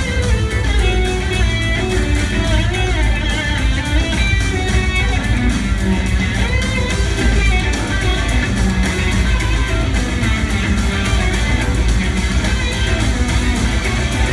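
A live blues-rock band jamming: electric guitar melody lines over a loud bass and a steady drum beat.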